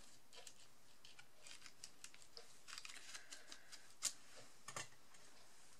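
Faint rustling and light taps of die-cut cardstock pieces being handled and laid on a card front, with a sharper tick about four seconds in and another shortly after.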